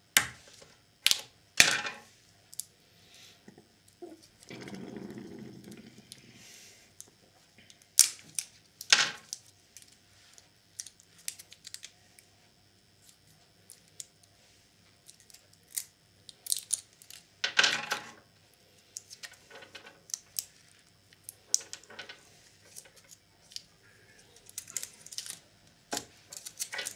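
Irregular small clicks and taps of a precision screwdriver and a small plastic remote control being worked on and handled, opening its battery compartment, with parts knocking on the desk. A brief rustling scrape comes about five seconds in.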